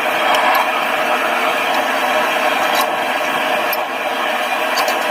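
Steady, loud rushing roar of a running forge, with a few faint ticks.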